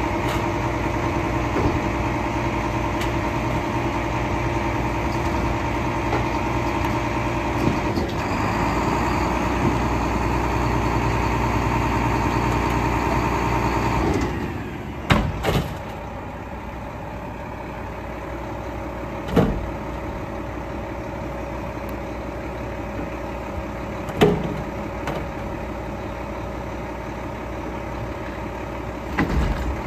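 Mack LEU garbage truck's engine running steadily at a raised speed with a held whine, then settling to a lower, quieter idle about halfway through. Several sharp bangs come over the idle as bulky items are dropped into the truck's metal Curotto-Can.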